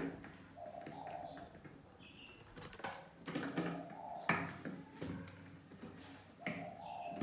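Mice moving in and around a clear plastic jar trap: scattered taps and clicks against the plastic, the sharpest at the start and about four seconds in. A bird coos softly in the background a couple of times.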